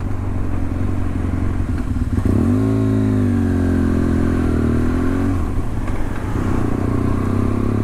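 BMW F800 ST parallel-twin motorcycle engine under way: its pitch climbs about two seconds in as it accelerates, holds, then drops back a little after halfway and runs on at a steady lower note.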